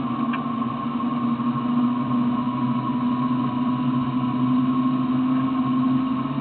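Vehicle engine running steadily: an even low drone with a fainter, higher whine above it.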